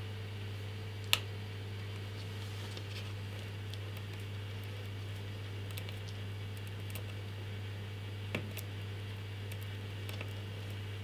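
Sharp plastic clicks and light handling noise from fingers working at a liquid CPU cooler's pump block, prying at its stuck protective plastic film, over a steady low hum. One loud click comes about a second in, another near eight seconds in, with a few fainter ticks between.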